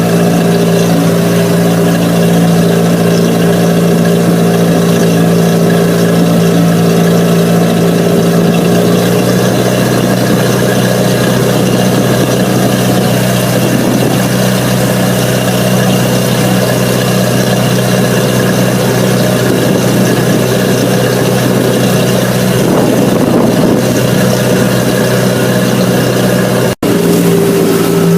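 Motorboat engine running steadily at cruising speed, loud and droning. Its tone changes slightly about a third of the way through, and the sound breaks off for an instant near the end.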